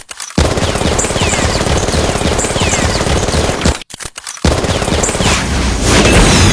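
Rapid, continuous machine-gun fire, a war sound effect, breaking off briefly about four seconds in. Near the end a high falling whistle begins, like an incoming shell.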